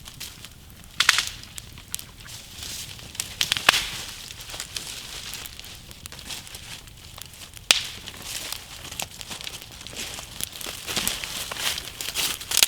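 Wood campfire crackling, with sharp pops every few seconds over a steady hiss.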